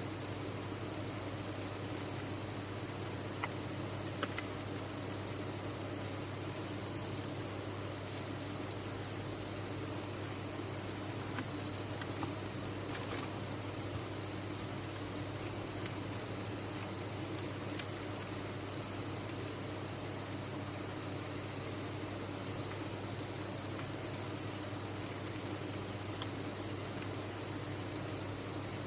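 A dense chorus of many farmed crickets chirping without pause, merging into one steady high-pitched trill.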